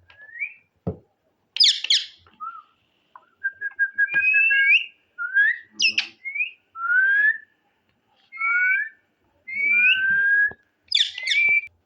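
Pet parrot whistling a string of short, mostly rising whistled notes with brief pauses between them, with a couple of harsher calls, one about two seconds in and one near the end.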